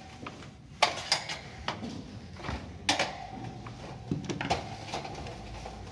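Screwdriver prying at the sheet-metal frame of an electric heater to force the pinned front grille loose: sharp metallic clicks and scrapes, the loudest about a second in and again about three seconds in.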